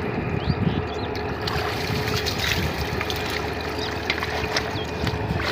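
Shallow water sloshing and splashing as a hand net on a bamboo frame is swept through it and men wade, with wind rushing on the microphone and a faint steady hum underneath.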